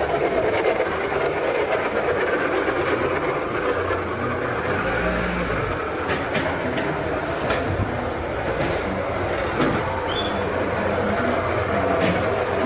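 Running car engine with a steady metallic noise from the A/C compressor pulley, metal rubbing on metal. It is the sign of a failing compressor pulley that could seize and lock the auxiliary belt.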